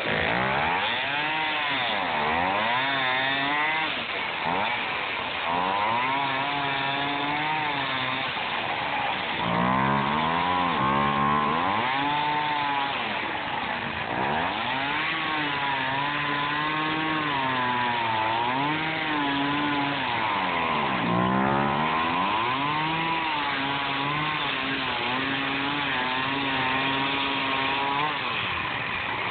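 Two-stroke gas chainsaw running while cutting through a block of expanded polystyrene foam, its engine pitch repeatedly dropping and rising again as the throttle is worked through the cut.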